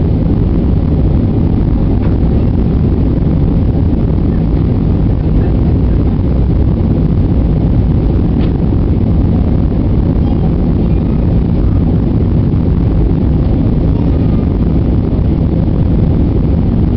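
Steady, deep cabin noise of a jet airliner in its climb after takeoff: engine and airflow noise heard from a window seat inside the cabin.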